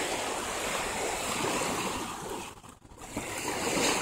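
Small waves washing on the bay shore in a steady rushing wash, with a brief lull a little under three seconds in.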